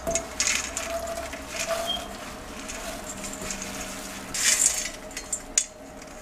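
Fried boondi being poured from a steel bowl into a steel pan of sugar syrup: soft rustling and patter, with a few short scrapes of the bowl. The loudest comes about four and a half seconds in.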